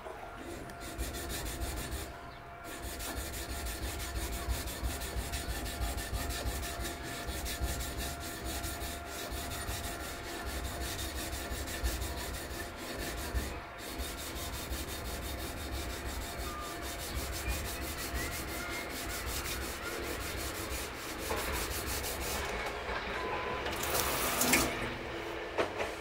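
Kurouchi gyuto blade being stroked back and forth on a wet 400-grit sharpening stone, a steady gritty scraping as the blade road is ground to remove the 200-grit scratches. A brief louder clack comes near the end.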